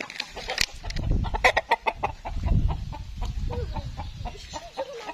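A rooster giving short, low clucks in the second half while it feeds. Before that, about a second in, there is a run of sharp clicks and a low rumble.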